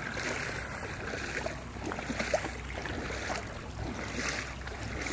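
Footsteps wading through shallow floodwater, a soft slosh about once a second, over a steady low rumble of wind on the microphone.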